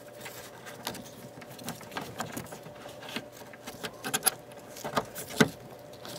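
Plastic clicks and rustling as a wiring harness and its plastic clip are handled and pushed up into place under a car dashboard, with one sharp click about five seconds in.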